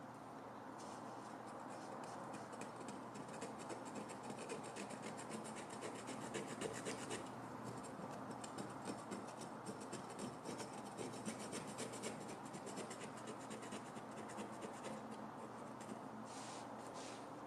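Old damaged paint being scraped and scrubbed off the metal base of a Mitutoyo 7003 stand by hand, a rapid, continuous back-and-forth scratching.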